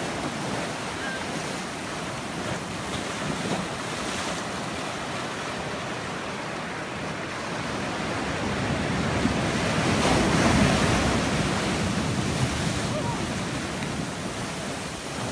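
Ocean surf breaking and washing against a rock outcrop, a continuous rush of water that swells louder about ten seconds in as a bigger wave comes in.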